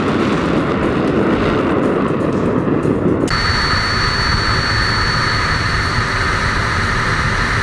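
Jet aircraft engine noise, a steady rushing sound. About three seconds in it changes abruptly to a brighter hiss with a thin, high, steady whine.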